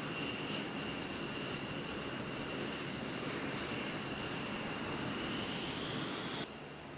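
F-15E Strike Eagle jet engines running on the ground, a steady noise topped by a high, steady turbine whine. The sound drops sharply near the end, leaving a quieter hiss.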